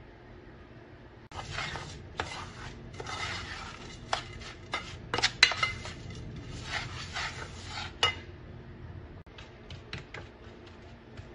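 Metal spoon stirring buttered crumbs in a steel pan, starting about a second in: gritty scraping with sharp clinks of the spoon against the pan. Near the end, lighter scattered taps as the spoon presses the crumb base down into the tin.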